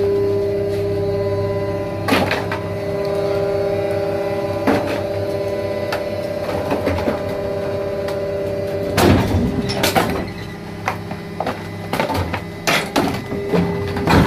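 Plastic injection moulding machine humming steadily, with occasional knocks. A little past halfway a burst of loud clattering and knocking comes as its sliding safety door is worked, the hum dies away, and irregular knocks follow.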